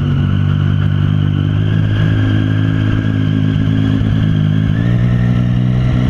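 Triumph Street Triple's three-cylinder engine running at fairly steady revs while being ridden. The pitch shifts slightly just before the end.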